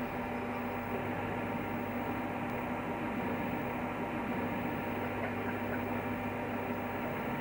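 A steady electrical hum with hiss, unchanging throughout.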